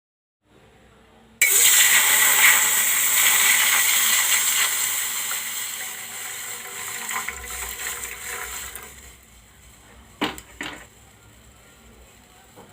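Water poured into a pan: a loud rush that starts suddenly and fades away over several seconds, followed by two light knocks.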